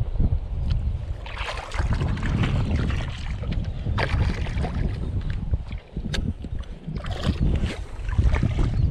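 Wind buffeting the microphone in a steady low rumble, with shallow water sloshing and splashing in several short bursts around a wading angler's legs.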